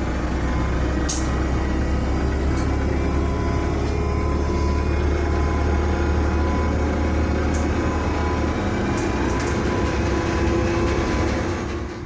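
City bus cabin while riding: steady low engine and road rumble, with a few sharp faint clicks and rattles.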